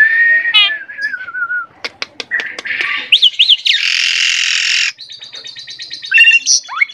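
Asian pied starling (jalak suren) singing a long, varied song: a sliding whistle, sharp clicks and quick whistled notes, a harsh rasping note lasting about a second, then a fast chattering rattle and more whistles near the end.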